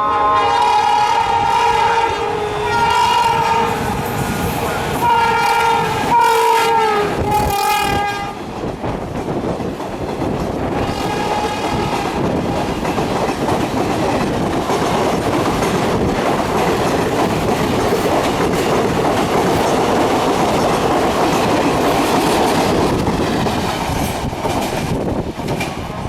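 A WCAM3 electric locomotive's horn blows in about four blasts as it runs through at about 100 km/h, the pitch dropping slightly on the last blast as it passes. Then the express coaches rush by at speed with a steady clatter of wheels over the rail joints.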